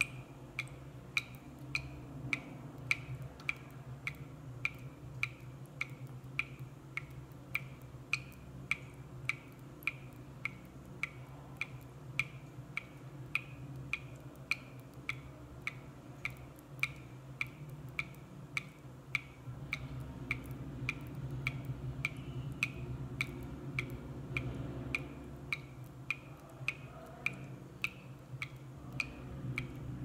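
Water dripping from a tap at a steady pace, about two drops a second, each drop a short, sharp ringing drip, over a low steady hum.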